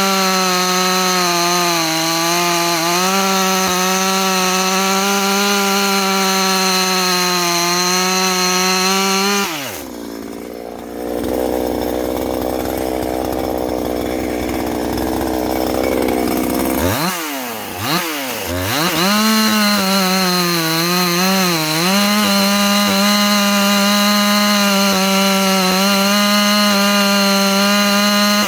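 Ported Husqvarna 350 two-stroke chainsaw (49.4 cc) held at high revs with a steady note. About nine seconds in it drops to idle. Around seventeen seconds it is blipped up and down a few times, then held high again with a couple of brief dips.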